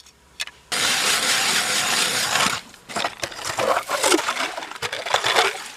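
Hand ice auger boring into lake ice, a continuous coarse grinding and crunching that starts suddenly, then gives way to irregular scraping strokes as the cut goes on.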